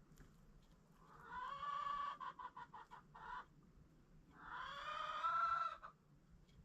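Domestic chicken calling twice. The first call is drawn out and breaks into a quick run of short clucks; the second is a single long call that rises slightly in pitch.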